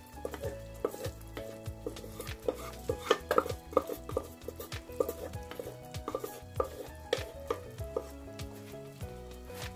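Wooden spatula stirring mutton chops through thick curry in a pan, with frequent short knocks and scrapes.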